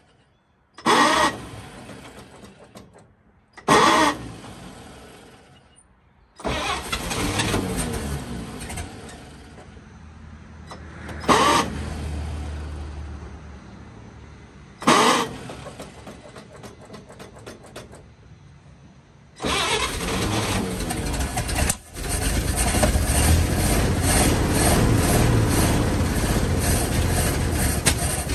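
1953 GMC truck's inline-six engine being started after sitting for decades: several short, loud bursts and brief runs that fade out, then about two-thirds of the way through it catches and keeps running, dipping once before it steadies.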